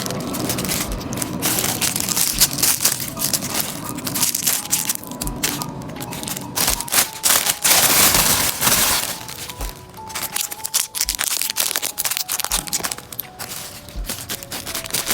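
Plastic packaging crinkling and crackling as it is handled and opened, with a longer rustle about halfway through, over soft background music with a gentle beat.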